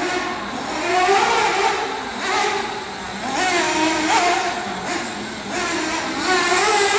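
Small two-stroke nitro engines of 1/8-scale RC buggies running on the track, revving up and down. Their pitch rises and falls over and over with the throttle.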